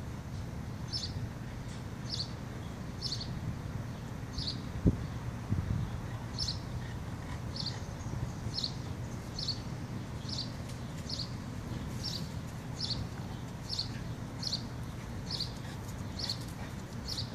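A bird chirping over and over, one short high note about once a second, over a steady low outdoor rumble. A single dull thump comes about five seconds in.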